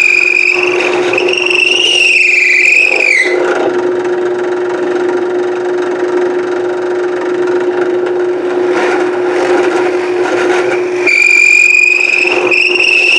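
Drill press motor running with a steady hum, its bit boring into wood with a high squeal during two cuts: one at the start that ends about three seconds in, and another from about eleven seconds in. Each squeal dips in pitch as it ends.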